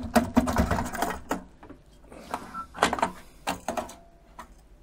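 A metal-fronted plug-in card module being worked loose and slid out of the Setaram CS32 controller's card cage. A rapid flurry of clicks and scrapes for the first second or so, then a few separate sharp knocks about three seconds in.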